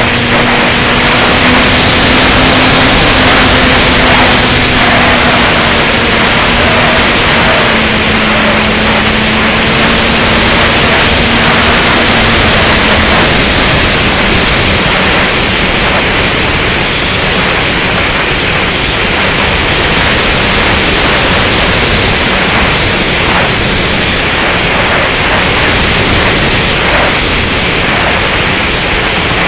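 Loud, steady wind rush on an RC plane's onboard camera microphone in flight, with the hum of the Flyzone Seawind's electric motor and propeller underneath. The hum drops slightly in pitch about eight seconds in and fades out before halfway, leaving the wind noise.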